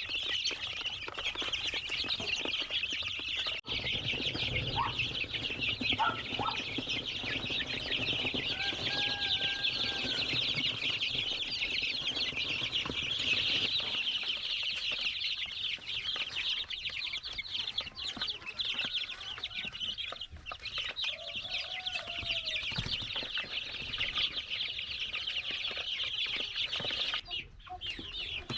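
A large flock of chickens calling at once, a dense continuous chatter of many overlapping clucks and peeps, with a few single louder calls standing out.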